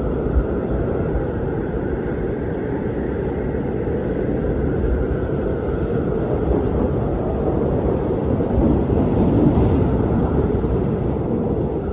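Howling wind: a steady low rushing noise with a faint higher moan above it, swelling a little louder about nine seconds in.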